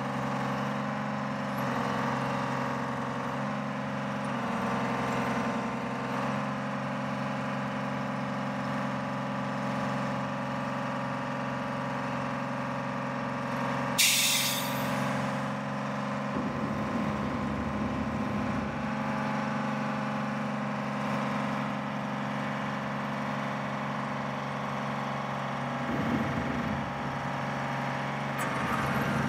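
Diesel engine of a rough-terrain mobile crane running steadily as it holds a heavy load on its hook, with a sharp, loud hiss of air released about halfway through.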